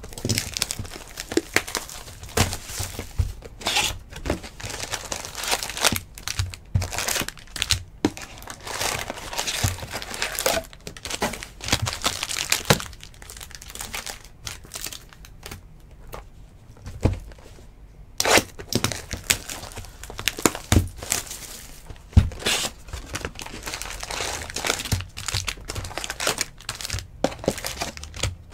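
Plastic shrink wrap being torn and crinkled off a sealed box of trading cards as it is opened by hand, in irregular crackling and rustling with a quieter spell about halfway through.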